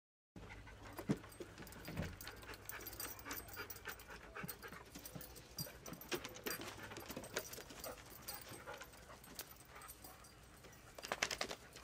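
Dogs panting and scuffling as they play, with many short clicks and rustles and a quick cluster of sharp sounds near the end.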